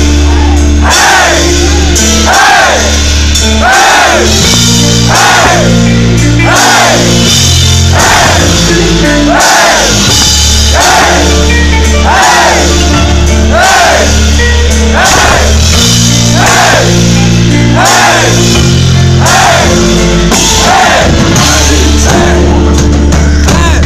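Melodic death metal band playing live and loud: distorted electric guitars in a repeating riff over drums and bass, with vocals, recorded from the crowd.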